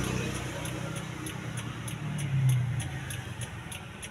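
Daihatsu Xenia's 1.3-litre four-cylinder engine running, heard from inside the cabin as a steady low hum that swells briefly about two and a half seconds in. A light, regular ticking, about three ticks a second, runs over it.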